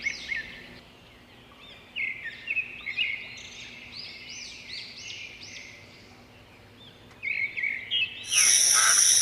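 Birds chirping: runs of short, quick chirps with quieter gaps between them. Near the end a loud, steady hissing whir starts suddenly and becomes the loudest sound.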